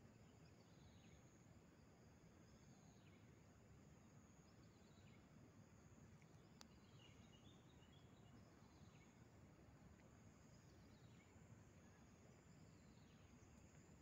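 Near silence: faint outdoor ambience, with a steady thin high tone and short falling chirps that come every second or two.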